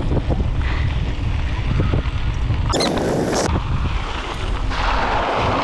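Wind buffeting the microphone of a camera on a moving mountain bike, with the tyres rolling over a gravel path. There is a short hiss about three seconds in and a rougher hiss near the end as the bike slows to a stop.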